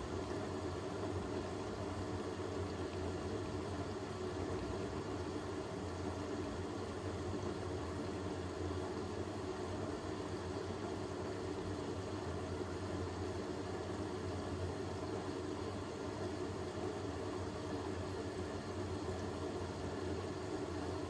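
Hoover H-WASH 500 front-loading washing machine running steadily partway through a Cotton 60 cycle: a continuous low motor hum with drum noise, unchanging throughout.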